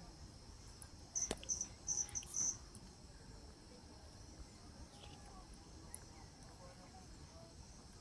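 A run of five short, high-pitched insect chirps in quick succession about a second in, over a quiet outdoor background.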